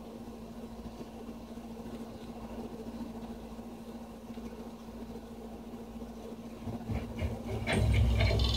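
Film soundtrack effects played through a Yamaha YSP-2700 sound bar: a quiet low rumble with a steady low hum, swelling sharply near the end into a loud, deep rumble with crackling.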